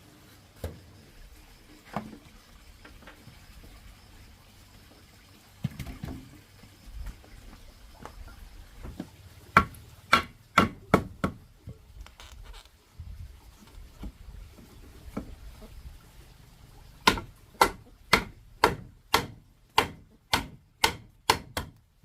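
Hammering: scattered knocks, then a quick run of about five sharp blows about ten seconds in, and near the end a steady run of about ten blows, roughly two a second.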